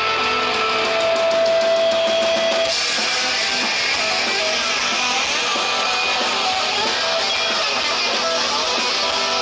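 Rock band playing live, with loud strummed electric guitars and drums; a held note early on gives way to the full band about three seconds in.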